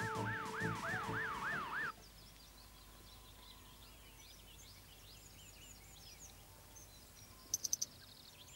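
Fire engine siren warbling fast, about four up-and-down sweeps a second, cut off suddenly after about two seconds. Then faint birdsong, with a few short, high clicking chirps near the end.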